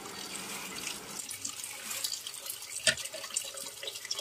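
Kitchen tap running, its stream splashing into a bowl of water in a steel sink, with one sharp click about three seconds in.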